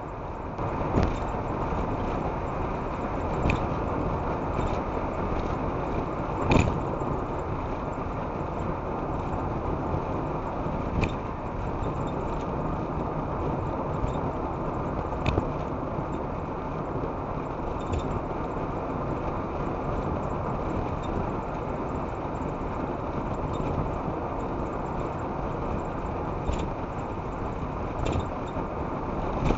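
Steady road and tyre noise of a car driving at motorway speed, heard from inside the car, with a short sharp click or rattle every few seconds.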